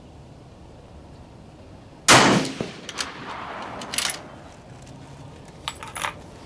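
A single rifle shot about two seconds in, loud and sudden with a long echoing tail, followed by a few shorter sharp metallic clicks.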